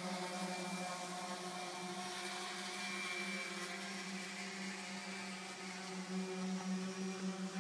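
Motor of a power tool used for stripping exterior house paint, running steadily with a constant pitch; its level begins to waver near the end.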